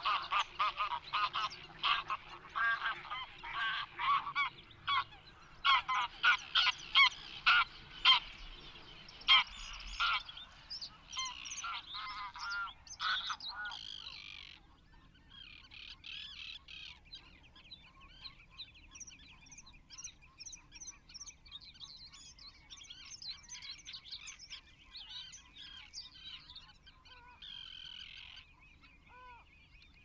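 Geese honking, many loud calls in quick succession, dying away about halfway through; fainter, higher calls of other birds carry on after.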